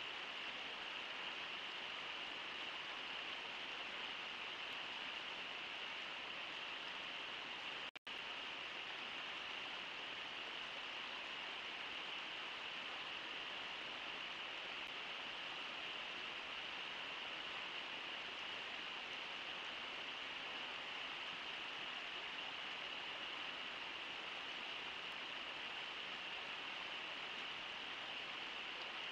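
Steady, even rushing of river water, with the sound cutting out for an instant about eight seconds in.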